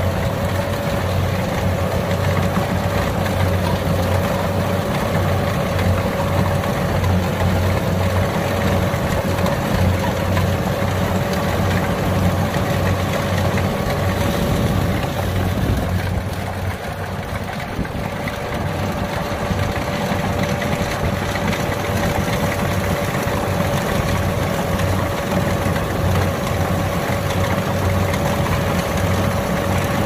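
Kubota DC70 rice combine harvester's diesel engine running steadily under load while cutting and threshing lodged rice, with a low throb and a steady high whine over it. It grows slightly quieter for a moment about halfway through.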